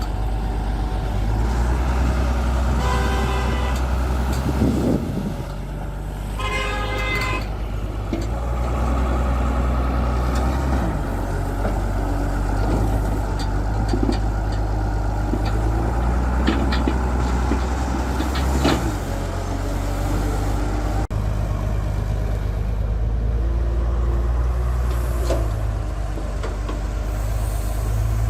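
Excavator's heavy diesel engine working with a deep, steady rumble that swells and eases. Twice in the first several seconds a brief high whine rises over it, and scattered clanks come through, the loudest a little past the middle.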